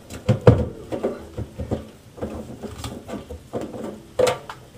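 Drain pipe fittings knocking and clattering as a tailpiece is handled and worked into a slip-joint drain connection, with irregular knocks, the loudest about half a second in and just after four seconds.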